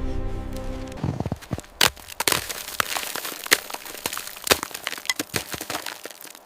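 Background music stops about a second in, followed by irregular sharp cracks and crunches.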